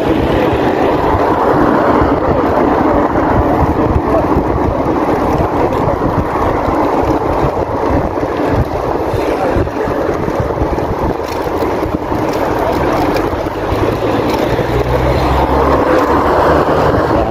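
Wind buffeting the microphone of a handlebar-mounted phone on a moving bicycle, with rolling road noise from the asphalt. A steady low hum joins in near the end.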